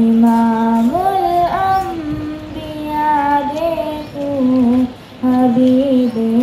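A schoolgirl singing an Urdu naat, a devotional poem, solo into a handheld microphone. She holds long notes and bends them in ornamented glides, pausing briefly about five seconds in before starting the next phrase.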